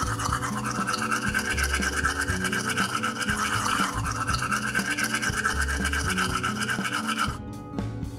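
A small motorized brush buzzing steadily as it scrubs a die-cast part in a jar of paint stripper, then switching off about seven seconds in.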